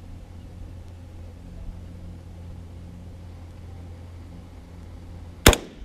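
Steady low rumble, with a single sharp crack about five and a half seconds in that rings briefly.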